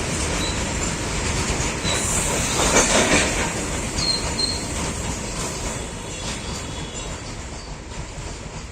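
Train rolling past with wheels clattering over the rails and a few brief, high wheel squeals; the rumble peaks about three seconds in and then slowly fades.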